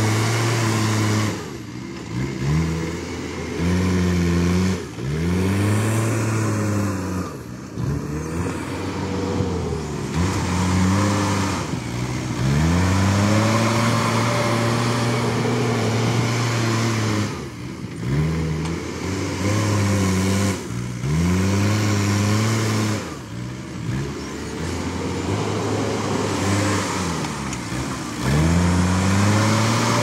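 Diesel engine of a JCB backhoe loader working, its revs repeatedly dropping away and climbing back every few seconds as the machine shuttles forward and back.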